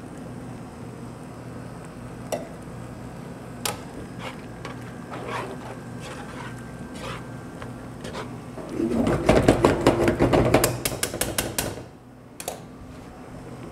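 Metal cookware and utensils clattering at a gas stove: a few light clinks, then about three seconds of loud, rapid rattling and scraping of metal on metal, over a steady low hum.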